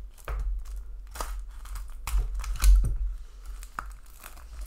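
Plastic shrink-wrap being slit with a knife and peeled off a booklet package, crinkling and tearing in short irregular crackles. The loudest crackles come around the middle, along with a dull bump from handling the package.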